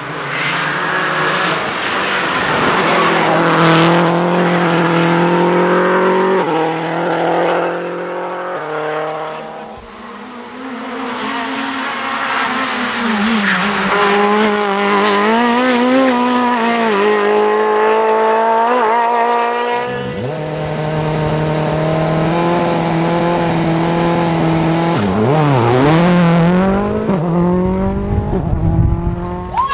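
Competition car engine driven hard, its pitch rising in steps through the gears and falling on the lift-offs, with tyres squealing in places.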